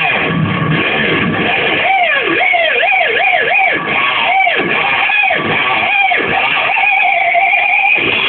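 Distorted electric guitar, an Ibanez Saber with a Floyd Rose–licensed locking tremolo, played through a Boss Metal Zone pedal and a Marshall AVT100 amp. After a couple of seconds of low chords, the tremolo bar is dipped again and again, each note dropping in pitch and springing back, about eight times in four seconds. Near the end a held note wavers quickly in pitch.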